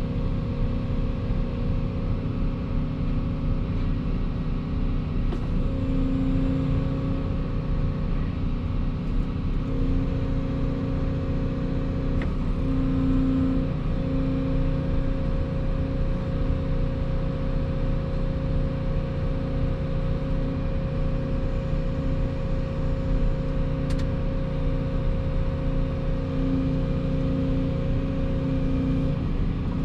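Volvo EC220 excavator running steadily while working, its engine and hydraulics giving a continuous drone with a steady whine and a couple of faint clicks.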